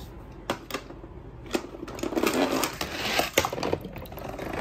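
Small hard objects clicking and clattering: a few separate clicks in the first second and a half, then a busy rattle lasting about two seconds.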